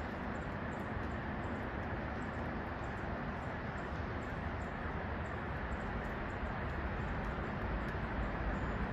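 A steady, even rushing noise that runs without a break, with no distinct knocks, calls or other events standing out.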